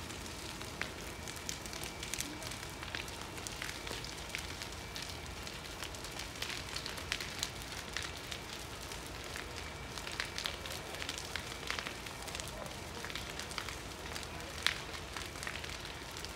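Large building fire burning in the wreckage of a collapsed timber side building, crackling with frequent sharp pops and snaps over a steady rushing noise; one louder snap near the end.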